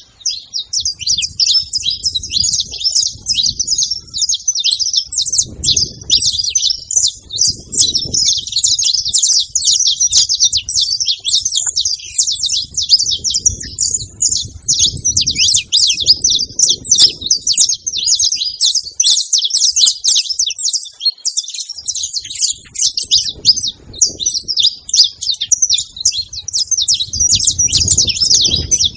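A flock of saffron finches chirping at a feeding spot, many short calls overlapping into a continuous chatter. A low rumble comes and goes underneath.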